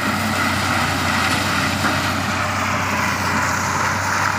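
Sugarcane harvester running, a loud, steady machine noise of engine and working parts with a constant low hum underneath.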